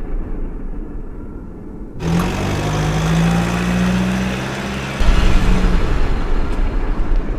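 Vehicle engine sounds from an edited soundtrack. A low rumble gives way abruptly, about two seconds in, to an engine hum with a steady pitch, which switches just as suddenly, about five seconds in, to a louder, heavier rumble.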